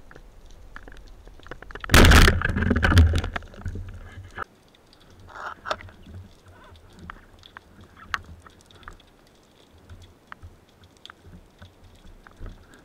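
Speargun fired underwater: a sharp, loud crack about two seconds in, followed by a couple of seconds of low rumbling water noise. After that come scattered faint underwater clicks and crackles.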